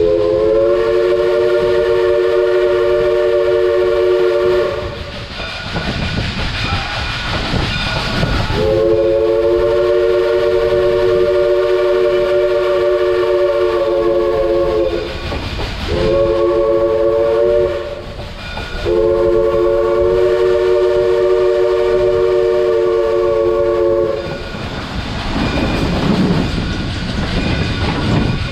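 Southern Railway No. 401 steam locomotive's chime whistle sounding a chord of several notes in four blasts: long, long, short, long. That is the standard grade-crossing signal. Between the blasts and after them, the running noise of the moving train.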